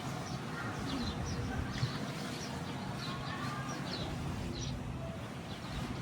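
Small birds chirping, many short quick high notes scattered throughout, over a steady low rumble.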